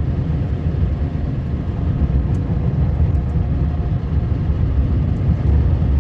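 Vehicle driving on a snow-covered gravel road: a steady low engine and road rumble.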